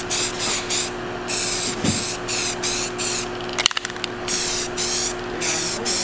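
Aerosol spray-paint can hissing in short repeated bursts, about two a second, with a quick rattle of clicks about two-thirds of the way through.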